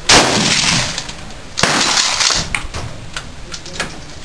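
Two gunshots about a second and a half apart, each followed by a short echoing tail, with a few faint clicks afterwards.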